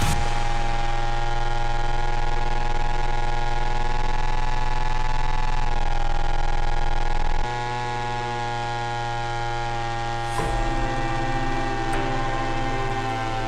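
Background electronic music in a section without drums: sustained synthesizer chords that change about halfway through and again near the end.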